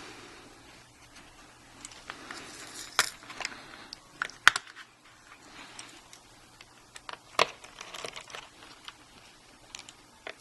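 Small parts and tools being handled inside an opened MacBook Pro: scattered light clicks and taps with some rustling, and a few sharper clicks about three, four and a half and seven and a half seconds in.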